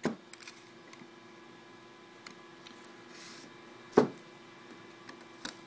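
A shrink-wrapped phone box handled on a tabletop: a few light taps and clicks, then one sharp knock about four seconds in as the box knocks against the table. A faint steady hum sits under it all.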